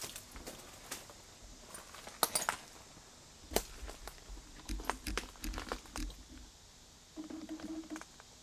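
Footsteps and crunching debris: sharp crackles and clicks, then a run of heavy thumps as a person climbs into the gutted body of an abandoned PCC streetcar and walks on its floor.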